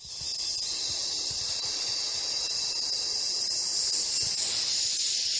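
Steady, loud, high-pitched hiss, an added rushing sound effect for an animated intro.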